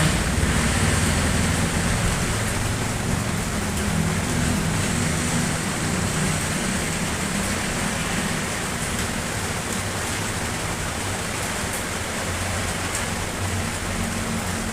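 Steady rain falling, an even hiss with a low rumble underneath that is strongest at the start and eases off.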